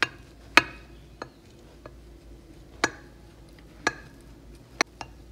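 A knife cutting an oat carrot cake in a glass baking dish, clicking against the glass: about six sharp, short taps at uneven intervals, the loudest about half a second in.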